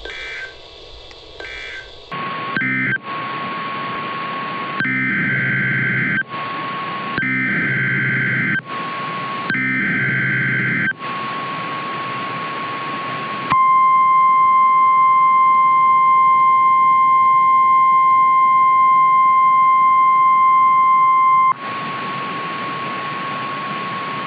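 Emergency Alert System broadcast tones over radio static: three bursts of the warbling digital header data, then a loud single-pitch weather-radio alert tone held steady for about eight seconds, then static again.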